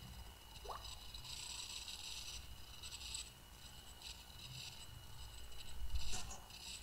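Faint background noise with soft scraping hiss that comes and goes, a brief rising chirp near the start and a louder thump about six seconds in.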